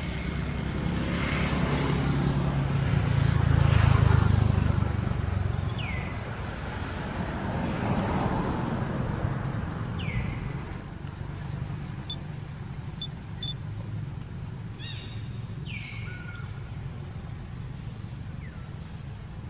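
A motor vehicle passing, a low rumble that swells to its loudest about four seconds in and fades away by about six seconds. Later come a few short, high, falling chirps and a thin, high, steady tone lasting a few seconds.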